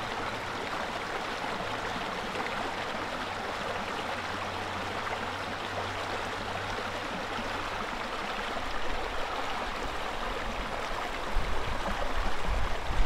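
Small creek flowing steadily over stones and around a fallen log, an even rushing babble of water. Low rumbling bumps on the microphone come in near the end.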